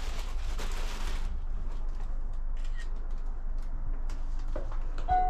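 Steady low rumble with a few faint clicks, then, just before the end, a video doorbell's chime starts: a ringing of several steady tones as its button is pressed.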